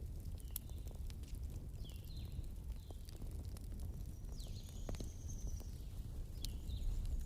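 Bonfire burning with a steady low rumble and scattered sharp crackles and pops, plus faint short high chirps or whistles now and then.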